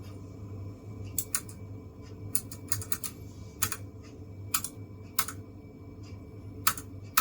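Single keystrokes on a Keychron K1SE low-profile keyboard with clicky optical blue switches, about ten separate presses at irregular intervals, as keys are pressed one at a time to cycle the backlight settings.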